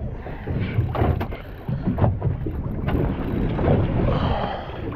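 Wind buffeting the microphone over the low rumble of a boat on the water, with a few short knocks.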